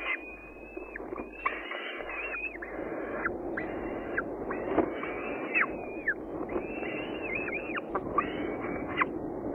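Falcon chick begging at the nest during a feeding: a run of high, repeated calls, about one a second, each half a second to a second long with pitch sliding at the ends, over a steady low rumble of wind or camera noise.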